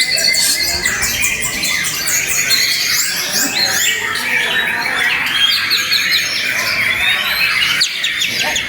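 Several caged white-rumped shamas singing at once in competition: a dense, loud tangle of overlapping whistles, fast trills and rapid chattering notes, high-pitched and unbroken.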